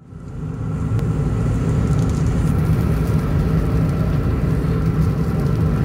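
Car driving on a highway, heard from inside the cabin: a steady low rumble of road and engine noise that fades in over the first second.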